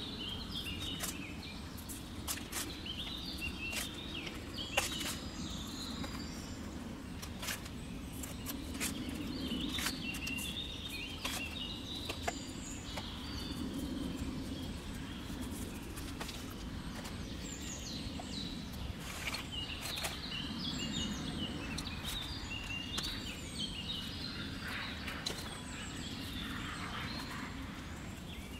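Small birds chirping on and off over a steady low background rumble, with scattered small clicks and scrapes from a spoon and hands working potting soil into a concrete planter.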